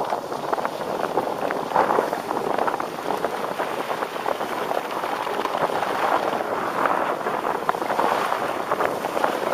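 Skis sliding and scraping over groomed snow on a downhill run, a rough hiss that swells and eases, mixed with wind buffeting the microphone.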